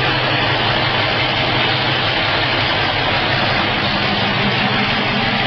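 1974 Toyota FJ40 Land Cruiser engine idling steadily through an open header and Y-pipe with no muffler, so it runs a little loud.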